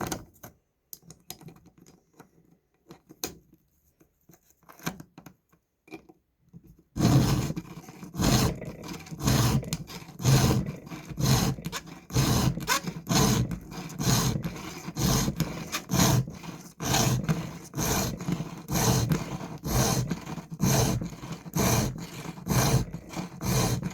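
A new round file sharpening a chainsaw chain's cutter teeth: a few seconds of faint clicks as the chain and file are set, then steady rhythmic scraping file strokes, about one a second.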